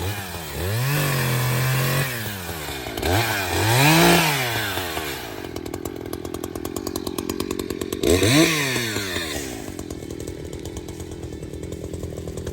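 Echo CS-590 two-stroke chainsaw (59.8 cc) revving up and dropping back several times, idling in between.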